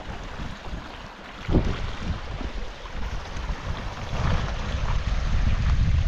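Wind buffeting the microphone as a gusty low rumble over the rush of a river, with one dull thump about one and a half seconds in.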